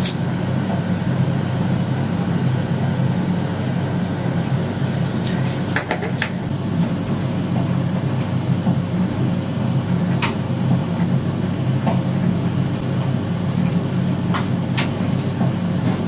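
A steady low hum with a few short clicks and taps scattered through it.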